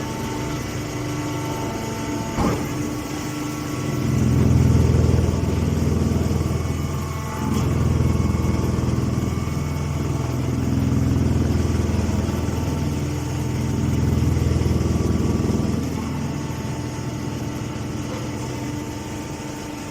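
Grass press baler machine running: a steady engine-like hum that grows louder about four seconds in, then swells and eases several times. There is one sharp knock a little over two seconds in.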